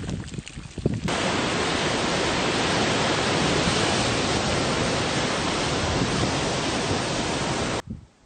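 Loud, even rushing noise that cuts in suddenly about a second in and stops abruptly near the end.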